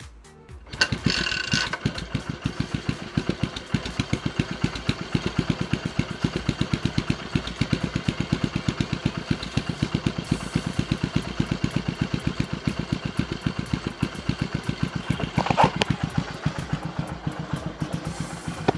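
Yamaha SR400's air-cooled single-cylinder engine kick-started, catching about a second in, then idling with an even beat of single firing pulses. There is a brief rise in level about three-quarters of the way through.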